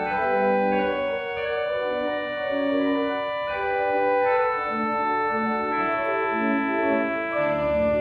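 Church organ playing a postlude: sustained chords moving from one to the next every half second or so, with a low pedal note coming in near the end.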